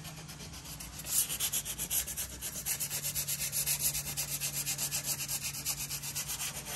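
Sandpaper rubbed by hand across the primed wooden top of a dresser in quick, even back-and-forth strokes, about four or five a second, picking up about a second in. It is knocking down small bumps in the shellac-based primer coat.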